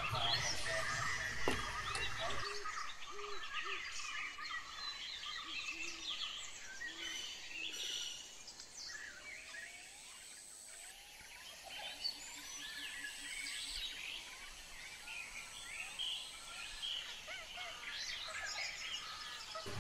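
Birds chirping and calling in the background, many short chirps and whistled glides, over faint room noise, with a low hum in the first couple of seconds.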